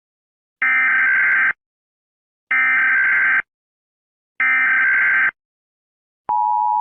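Emergency Alert System data header: three identical harsh, buzzing screeches of about a second each, about two seconds apart, then the steady two-tone EAS attention signal starting near the end. Together they open a new alert message.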